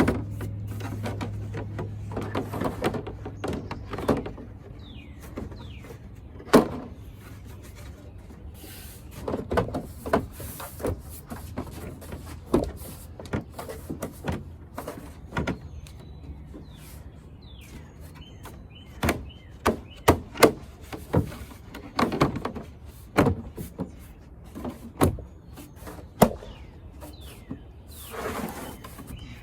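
Hard plastic pool-step parts being handled, knocked together and snapped into place: irregular clicks and knocks, some sharp and loud, at uneven intervals.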